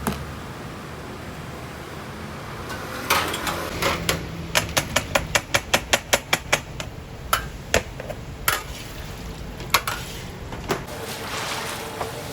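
A metal utensil clanking against metal cookware in a rapid run of sharp clinks, about four or five a second at the densest, starting a few seconds in and thinning out near the end, over a steady background hiss.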